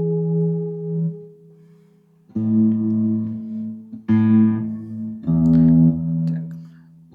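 Guitar chords played between sung lines. A held chord fades out about a second in; then, after a short pause, three chords are struck a second or two apart, each left to ring.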